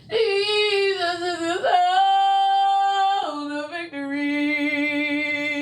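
A woman's voice singing long wordless held notes: a first note that sags slightly, a very steady note, then a lower note held to the end.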